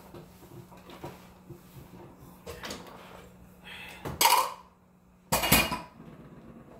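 A cloth rubbing over a wooden tray table with small knocks as it is wiped down, then two loud clatters, one a little past four seconds in and a louder one around five and a half seconds.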